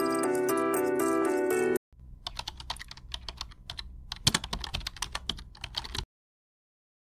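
Light background music for about two seconds, then a cut to rapid, irregular computer-keyboard typing clicks for about four seconds, laid over a title card; the typing stops suddenly.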